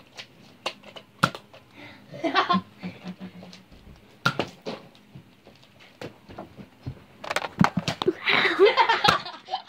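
Scattered sharp clicks and snaps from Nerf foam-dart blasters being handled and fired. Children giggle and laugh, loudest near the end.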